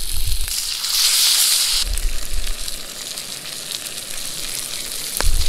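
Trout frying in a pan over a camp stove, a steady sizzle that swells much louder for about a second shortly after the start. There is a single sharp click near the end.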